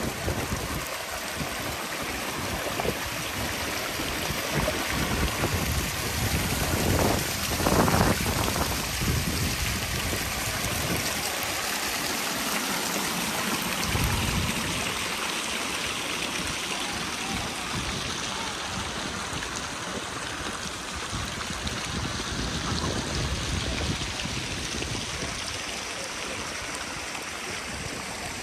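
Steady rushing noise like running water, with a brief louder swell about eight seconds in.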